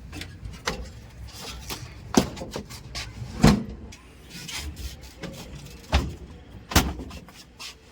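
Heavy machinery working: a low engine rumble runs under a series of irregular sharp knocks and bangs, the loudest about halfway through.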